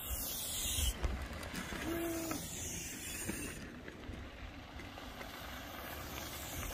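Mountain bikes passing on a loose, dusty dirt trail: a steady hiss of knobby tyres rolling over dirt, with wind rumbling on the microphone. A short pitched tone sounds about two seconds in.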